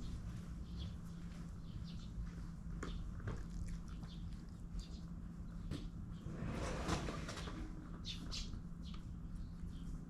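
Small birds chirping in short calls, most of them near the end, over a steady low hum. About six seconds in there is a rustling noise lasting a second or so.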